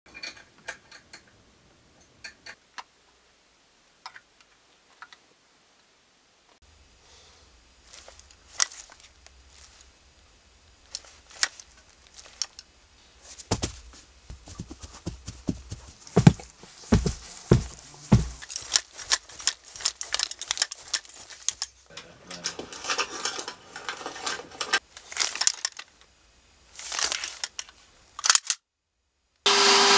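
Foley props being handled and struck in a small studio room: scattered clicks and taps, a run of low thumps partway through, then rustling and scraping near the end.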